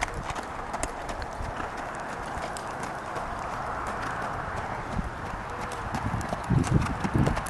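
Hoofbeats of a ridden horse going round an arena at a walk, soft irregular knocks over a steady background hiss, with a few louder low sounds near the end.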